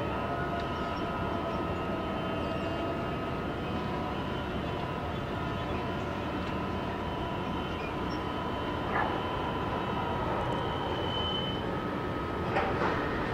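Liebherr harbour mobile crane hoisting a container: a steady machinery drone with high steady whines. Two short knocks come about nine seconds in and near the end.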